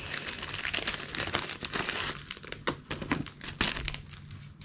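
Clear plastic wrapping crinkling as it is handled and pulled off a stack of cardboard punchboards. The crinkling is dense for about two seconds, then thins to scattered crackles.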